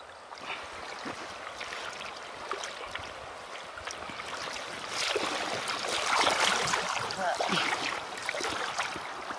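Shallow river water flowing and gurgling over stones, growing louder and closer about halfway through.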